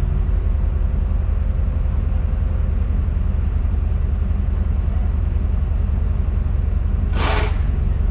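Tadano 180G-5 crane's diesel engine running at a steady idle, heard from inside the operator's cab, with a brief hiss about seven seconds in.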